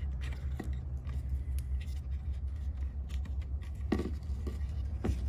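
Plastic corner lamp housing on a Toyota Corolla clicking and scraping as it is wiggled out of its long-sealed mounting beside the headlight, with two sharper clicks near the end. A steady low hum runs underneath.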